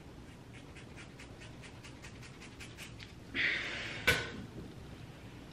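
Scissors snipping repeatedly through a thick ponytail, a run of small crisp cuts about five a second. About three seconds in comes a short breathy exhale, then a single sharp click.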